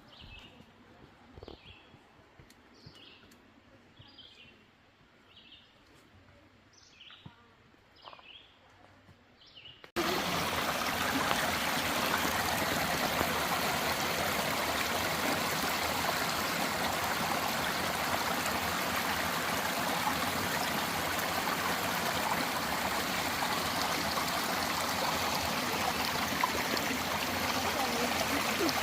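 A stream rushing over rocks: a steady, even rush of water that starts abruptly about ten seconds in. Before it there is only a faint background with a run of short, soft ticks.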